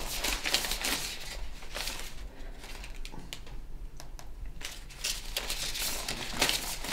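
Paper banknotes rustling and crinkling as they are handled and counted, in irregular bursts that thin out in the middle.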